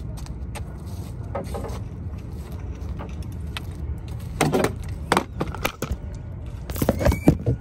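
A pier net's metal frame and mesh knocking and rattling on a wooden pier deck as a black drum is hauled in and handled. The knocks come in a few sharp clusters, the loudest about seven seconds in, over a steady low rumble.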